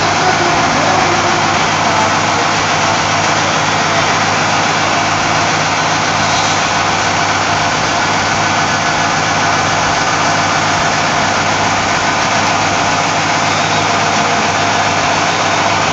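Resistance seam welding machine welding the seam of a sheet-steel tank: a steady, loud buzzing hum with a hiss, unchanging throughout.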